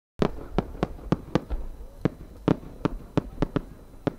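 A run of about a dozen sharp bangs, unevenly spaced at roughly three a second. They come from the small report charges (bunpō) attached to a rising 10-gō firework shell, going off one after another as it climbs.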